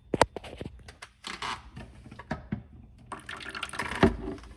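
Handling of a disconnected refrigerator water line: sharp clicks and rustling as the plastic hose is pulled out of its coupling, with a louder knock about four seconds in.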